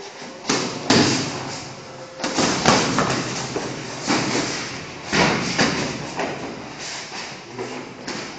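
Gloved strikes landing in a sparring exchange: about a dozen dull thuds at an irregular pace, each with a short echo.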